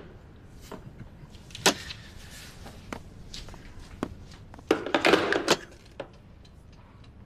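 Footsteps and small knocks in a room, with a brief scraping rustle about five seconds in.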